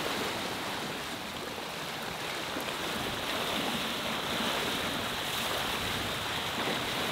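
Sea water rushing and splashing past a sailboat under way and around the towed inflatable dinghy's wake: a steady, even rush of water.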